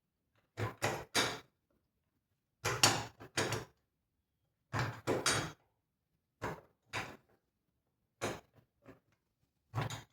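Short knocks and clatters in quick clusters of two to four, from tools and metal parts of a vintage Homelite chainsaw being worked loose during disassembly.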